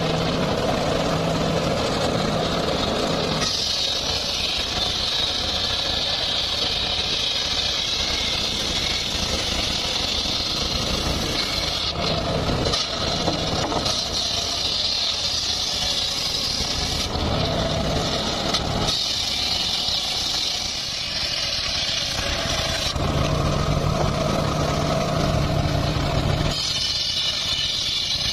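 A homemade circular sawmill runs steadily, its engine humming low under the spinning blade. A higher-pitched cutting sound comes and goes in several long stretches as the blade rips through the log.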